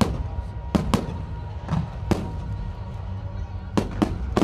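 Aerial firework shells bursting overhead: about eight sharp bangs at irregular intervals, some in quick pairs, over a steady low rumble.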